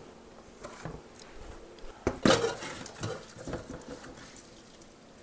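Tableware clatter on a kitchen counter: one sharp knock about two seconds in, then a few lighter knocks and taps.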